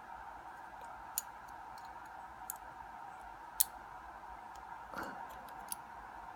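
Scattered small metallic clicks of a shim being worked into a padlock's core, about five over a few seconds, the sharpest about three and a half seconds in, over a steady faint hum.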